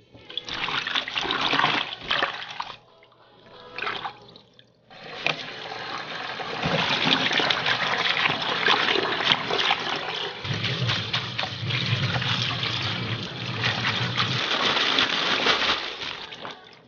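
Kitchen tap running into a plastic bowl of leafy herbs and then bean sprouts in a stainless steel sink, water splashing and gurgling as gloved hands swish the vegetables. The water breaks off twice in the first five seconds, then runs steadily until just before the end.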